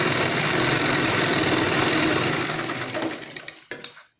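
Chauhan sewing machine running steadily as it stitches a seam in cloth, then slowing to a stop about two and a half to three and a half seconds in. A few short clicks come near the end as the stitching finishes.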